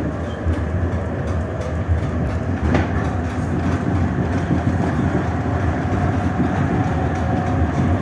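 Düwag GT6 tram running along the track, heard from on board: a steady rumble of wheels on rails with a faint steady hum, and two sharp clicks, one at the start and one about three seconds in.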